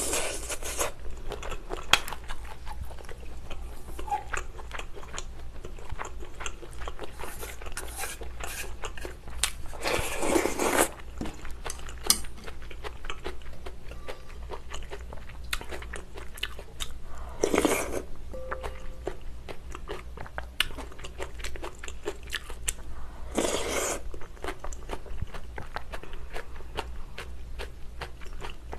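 Close-miked eating of shrimp noodle soup: chewing and crunching, with a run of small clicks from chopsticks and spoon. A few louder sounds about a second long come near the start and around 10, 17 and 23 seconds in.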